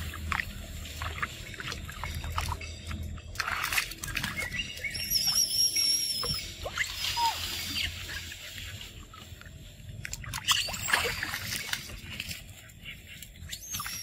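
Water splashing and sloshing as young macaques swim and scramble in and out of a concrete pool, with short high-pitched calls and a wavering high call lasting over a second about five seconds in.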